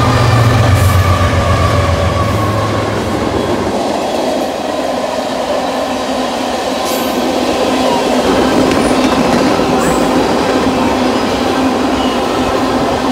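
BNSF freight train passing: a mid-train diesel locomotive's engine drone for the first few seconds, giving way to the steady rolling noise of tank cars on the rails, with a few sharp clicks from the wheels.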